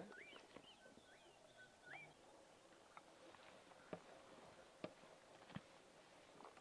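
Near silence with faint bird calls: short whistles that sweep upward, four or five in the first two seconds. After that come a few faint ticks, footsteps on stony ground.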